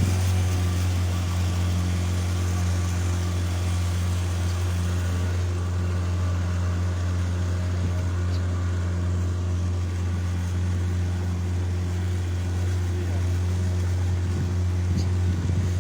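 Motorboat engine running at a steady pace, a constant low hum.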